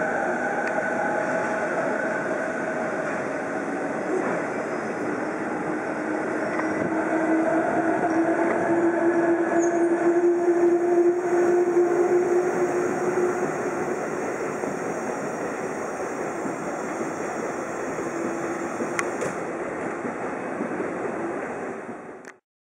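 Diesel locomotive at close range, its engine running with a steady drone and whining tones that swell a little around the middle; the sound cuts off suddenly near the end.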